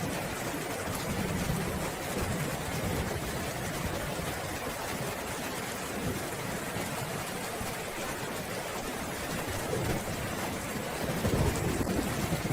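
Steady rain falling, with a low thunder rumble that swells near the end.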